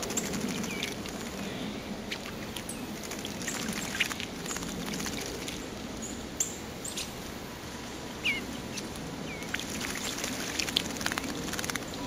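Eastern bluebirds bathing in a shallow bird bath: scattered splashes and wing flutters in the water, with a few short chirps, over a steady low background rumble.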